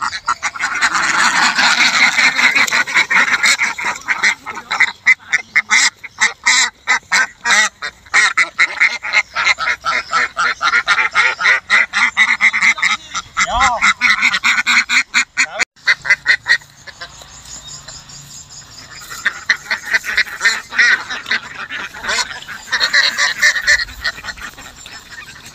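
A flock of laying ducks quacking loudly and continuously, many calls overlapping, as the birds are caught and carried by the legs. The quacking eases for a few seconds past the middle, then picks up again.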